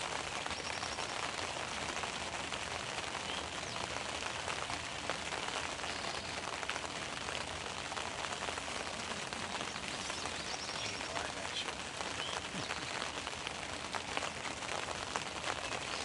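Steady rain falling, with the ticks of many individual raindrops landing close by.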